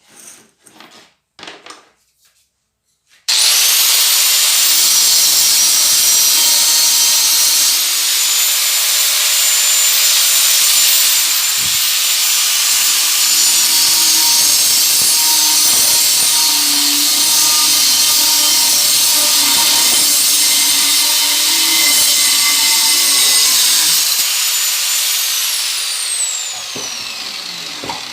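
An electric drill mounted as a homemade bench drill press switches on about three seconds in and runs at a steady high speed with a high whine. Near the end it winds down, its pitch falling as the motor is switched off.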